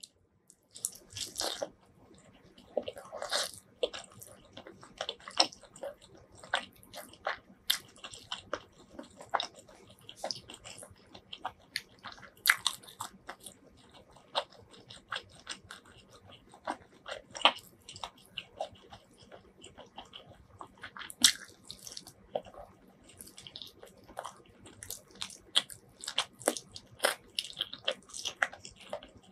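Close-miked eating: biting into and chewing a curry-spiced chicken drumstick, heard as many sharp, irregular mouth clicks and bites.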